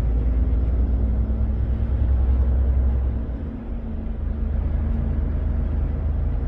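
Volvo FH truck's diesel engine droning inside the cab while driving, with road noise. The low engine drone eases off about halfway through.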